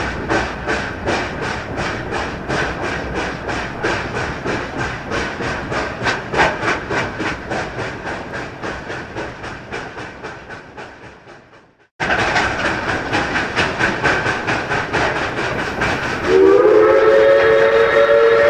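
Recorded Pennsylvania Railroad steam locomotive chuffing steadily at about four exhaust beats a second, fading away before an abrupt cut. The chuffing then resumes, and near the end a multi-note steam whistle sounds and is held.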